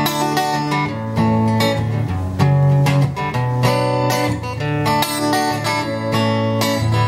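Acoustic guitar strumming chords in a steady rhythm: the instrumental intro of a country-leaning song, before the vocals come in.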